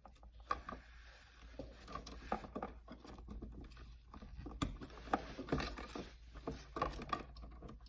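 Cutting pliers snipping off the torn-back plastic sheathing of non-metallic electrical cable, with rustling of the cable and insulation and scattered small clicks, a few sharper snaps in the second half.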